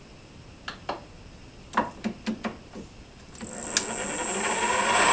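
A few light clicks and knocks, then about three and a half seconds in a VFD-driven metal lathe starts up. Its motor rises in pitch as it spins up and then runs steadily, with a high, steady whine over it.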